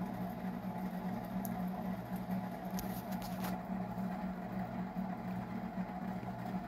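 Steady low hum in the room, with a few faint light clicks near the middle as a small metal spoon is picked up and handled.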